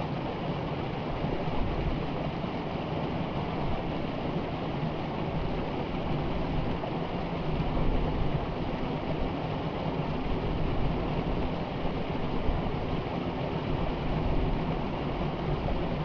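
A small cascade on a rocky stream, water pouring over the rocks and splashing steadily into a pool below.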